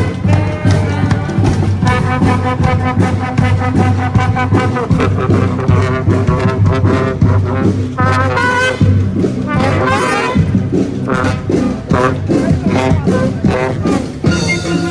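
Street brass band playing an upbeat rock tune, with trombones and trumpets over a steady drum beat.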